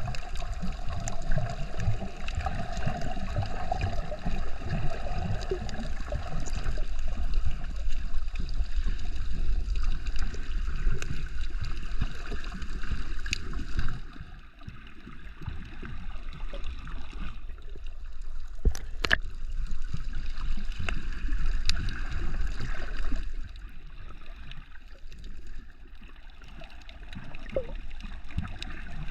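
Water sloshing and gurgling around a camera held by a snorkeller, with a steady low rumble. About halfway through, the sound turns quieter and muffled for a few seconds, then returns, and it dips again near the end.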